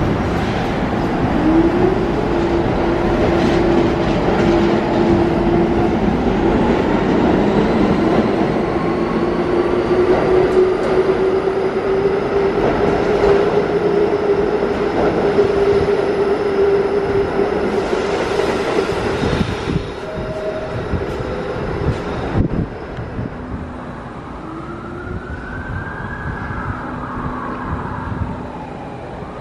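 R46 subway train pulling out of the station, its traction motors whining and slowly rising in pitch over the rumble and clatter of the wheels. About three quarters of the way through, the sound cuts abruptly to a quieter background.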